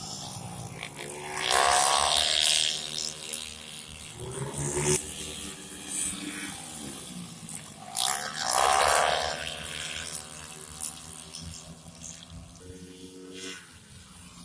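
Small racing motorcycles revving hard as they pass close by at speed, the engine note dropping in pitch as each goes past. The loudest passes come about a second and a half in and again about eight seconds in, with a lighter one in between.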